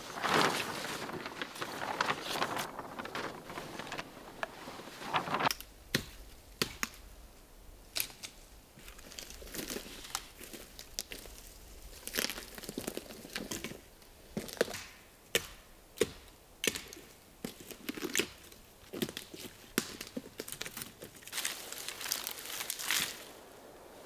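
A large black plastic sheet crinkling as it is handled and draped over a wooden frame; about five seconds in it gives way to scattered sharp cracks and snaps of dry twigs and branches on the forest floor.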